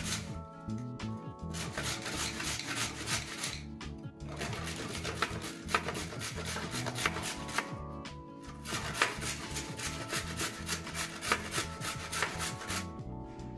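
Carrot being grated by hand on a stainless steel grater: quick runs of rasping strokes with short pauses between them, over background music.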